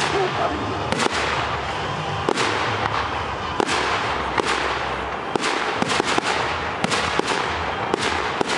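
Fireworks display: aerial shells bursting with sharp bangs at irregular intervals, roughly every half second to a second, over a continuous crackling hiss.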